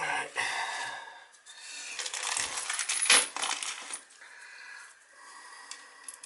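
Small metal hardware clinking and scraping as it is handled, with one sharp clank about three seconds in.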